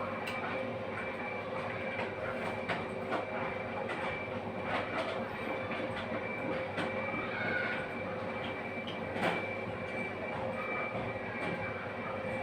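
Steady mechanical running noise with a constant hum, dotted with faint short clicks.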